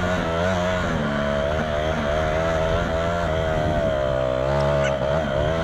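Yamaha TT-R230 dirt bike's single-cylinder four-stroke engine running under way while riding, its pitch rising and falling as the throttle changes.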